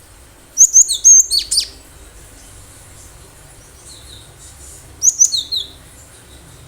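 Cinereous tit in full song: two bursts of quick, sharp, high notes, one about half a second in and another about five seconds in, with a faint quieter phrase between.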